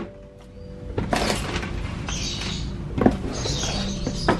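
Shrink-wrapped cardboard boxes being slid and shuffled across a tabletop by hand: rustling and scraping, with a few light knocks.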